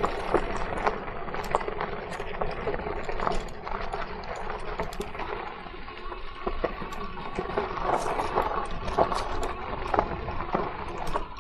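Crooked Path Rogue electric bike ridden over a rough dirt trail: tyres crunching over dirt and stones and the bike rattling, with irregular clicks and knocks over a steady rush of noise.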